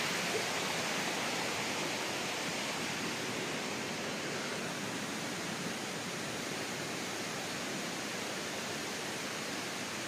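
Steady rush of water from a nearby waterfall, slowly growing a little fainter.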